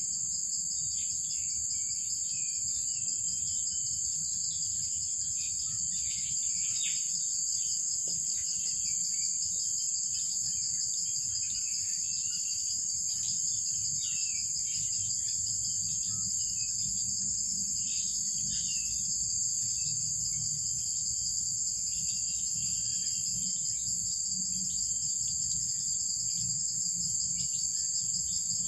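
Steady, high-pitched insect chorus droning without a break, with faint scattered bird chirps.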